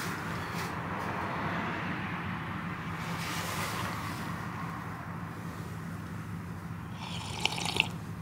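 Steady low hum and hiss of outdoor ambience, then near the end a short slurping sip of hot coffee from an enamel mug with two small clicks.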